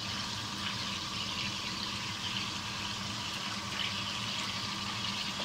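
Soutzoukakia meatballs frying in hot oil in a pan: a steady sizzle with spattering oil.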